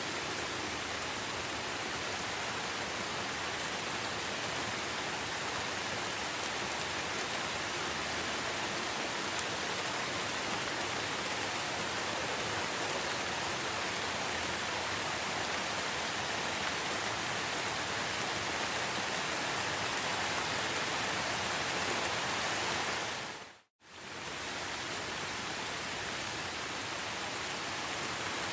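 Steady, dense rainfall in a rainforest, an even hiss without distinct drops. About 23 seconds in it fades to silence for a moment and fades straight back in.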